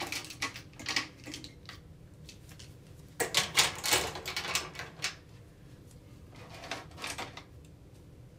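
Clicking and clattering of small hard objects being handled in a kitchen drawer, in short scattered runs, the loudest and densest about three to five seconds in.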